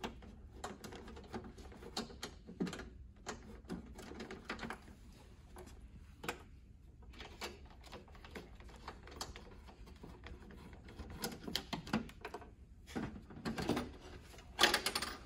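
Hand screwdriver backing the screws out of a circuit breaker's sheet-metal front cover: a run of small irregular clicks and scrapes. Near the end a louder metal scrape as the front cover is pulled free.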